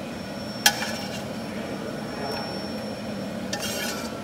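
A utensil strikes a stainless steel wok once, sharply, well under a second in, and the pan rings on with a thin fading tone; near the end comes a quick rattle of utensil scraping against the pan as cooked slipper lobster is lifted out.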